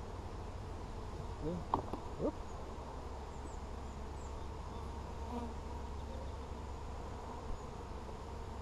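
Honey bees humming steadily around an open hive being inspected, with a couple of brief, sharper noises about two seconds in.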